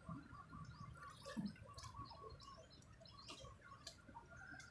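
Near silence: faint outdoor background with a few soft, scattered ticks.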